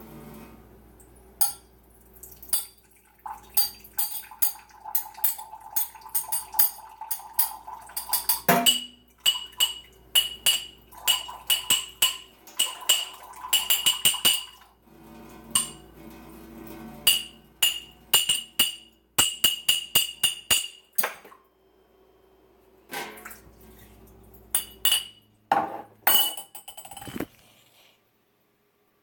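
Water being splashed and sloshed, with many quick clinks that each ring briefly, in irregular clusters; it stops shortly before the end.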